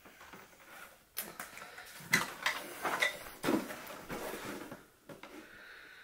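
Hollow plastic housing of a mini-split air conditioner's indoor unit being handled and turned over, giving a series of light knocks, taps and scrapes.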